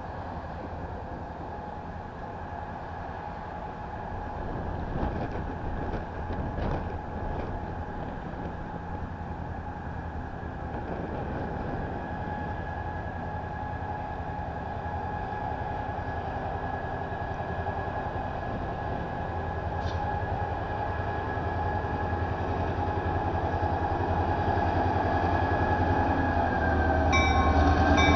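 Norfolk Southern diesel locomotive moving slowly with a string of freight cars. Its engine rumble and a steady whine grow steadily louder as it approaches.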